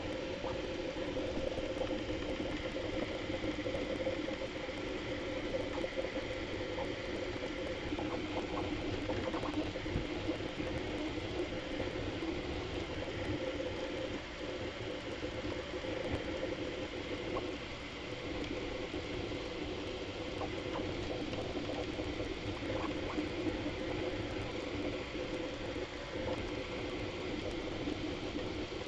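Bambu Lab A1 3D printer running a print, its stepper motors and fans sped up tenfold into a steady, dense whir.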